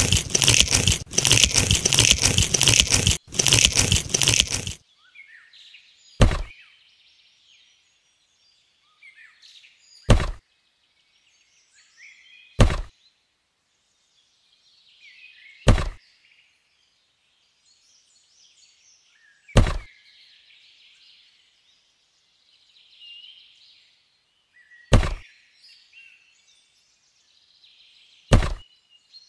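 A loud, rough noise for the first five seconds, then seven sharp taps a few seconds apart as red plastic stakes are set into the sand of a miniature vineyard. Faint birdsong runs underneath.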